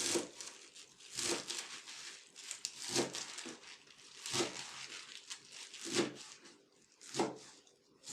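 Six rustling, crunching strokes of food being handled, each with a soft thud, one every second or so.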